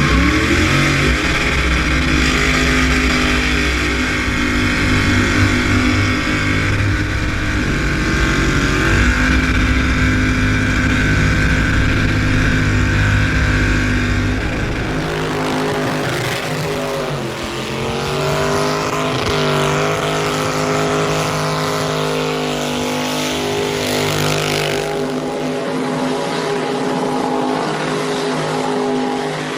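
Vehicle engine held at high, steady revs, as for a burnout. About halfway through, the revs dip and then climb again.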